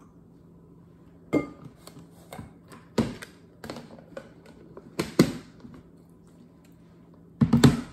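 Plastic food storage container's snap-on lid being pressed shut: a string of sharp plastic clicks and knocks, loudest in a quick cluster near the end.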